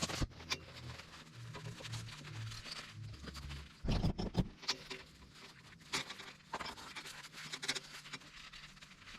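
Scratchy rubbing and scraping of a rag wiping down oily parts inside an air compressor's housing, with scattered clicks from handling and a louder clatter of knocks about four seconds in.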